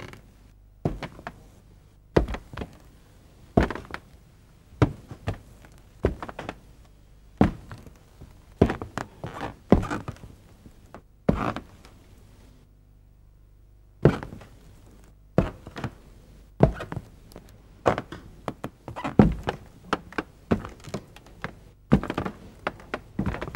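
Irregular series of short, sharp knocks, roughly two a second, over a faint low hum. The knocks stop for about two seconds a little past the middle, then resume.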